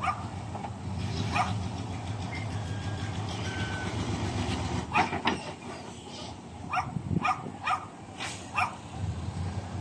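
Dump truck engine running low and steady as the truck reverses slowly into the soil. A dog barks repeatedly over it: a couple of barks about five seconds in, then a quick run of barks between about seven and nine seconds.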